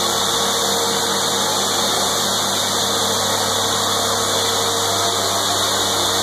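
Reverse-osmosis water purification plant running, its electric pumps giving a steady, even mechanical hum.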